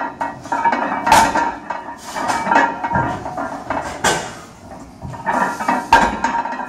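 Loaded barbell with iron plates clanking and knocking against the floor during sumo deadlift reps, in a string of sharp metallic clanks a second or two apart.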